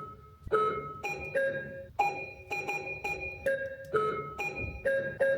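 A store beeping sound effect sampled and played as a melody on a keyboard, pitched down an octave and heavy with reverb: a run of ringing, pitched notes about two a second, changing pitch from note to note.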